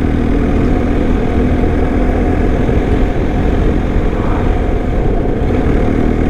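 BMW R1250 motorcycle's boxer-twin engine running steadily as the bike rides along, with a heavy rumble of wind on the onboard microphone.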